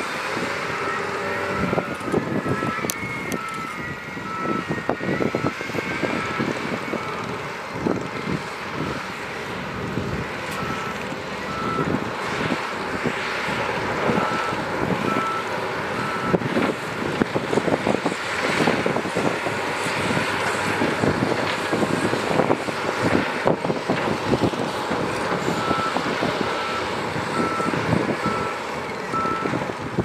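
Heavy earthmoving machinery running with a dense clatter of knocks, while a reversing alarm beeps in several stretches at about two beeps a second as a machine backs up.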